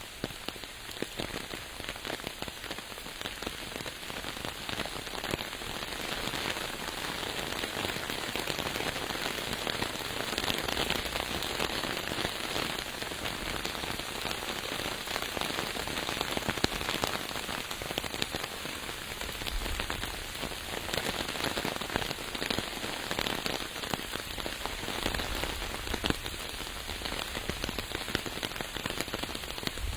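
Steady rain falling, a dense stream of close drop impacts over an even hiss, swelling slightly about a third of the way in.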